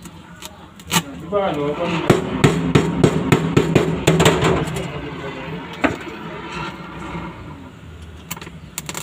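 Chipping hammer knocking slag off fresh weld beads on a steel vehicle floor pan: a quick run of sharp metal knocks for a few seconds, then quieter. Near the end the arc welder's crackle starts.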